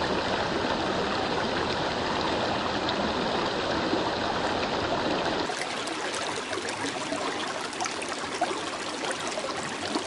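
Running water of a stream, a steady rushing and trickling. About five and a half seconds in it changes to a thinner sound with more fine splashing and less low rumble.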